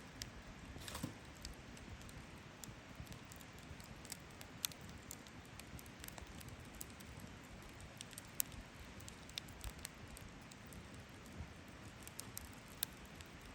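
Wood campfire crackling: faint, irregular sharp pops and snaps, one a little louder than the rest past the middle, over a low steady hiss.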